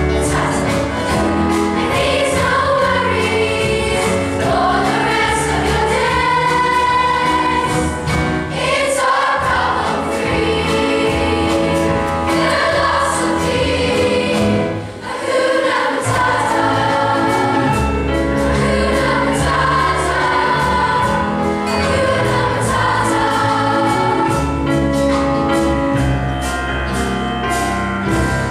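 A children's choir singing in unison over an instrumental accompaniment with a steady beat, with a brief drop in level about halfway through.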